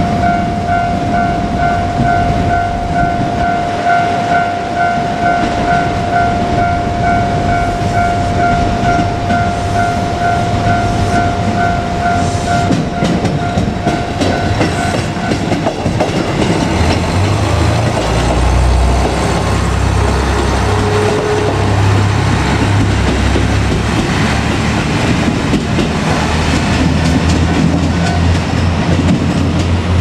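Level-crossing warning bell ringing in a steady fast repetition for about the first half, then a JR Kyushu KiHa 200 diesel railcar running past, its engine and wheels making a low rumble over the rails.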